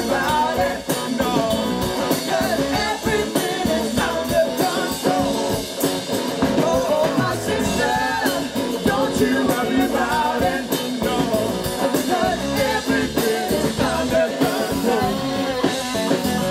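Live rock band performing: a male lead voice sings with a female voice over electric guitars and a drum kit.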